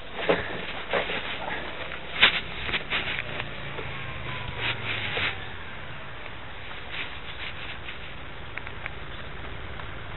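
Handling noise on a small keychain spy camera's microphone: a string of sharp clicks, knocks and rubs in the first half, then fewer, over a faint steady low hum.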